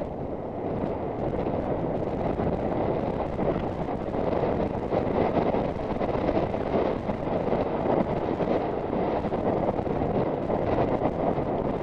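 Wind buffeting the rider's camera microphone as the horse gallops across grass at about 18 mph, a steady low rushing noise.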